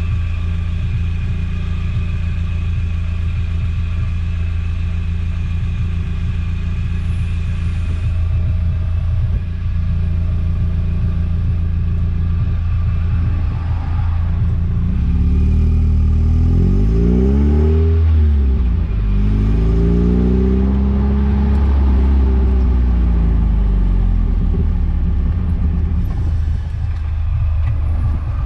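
Eunos Roadster's engine running steadily, then from about halfway revving up and down several times in rising and falling sweeps before settling again near the end.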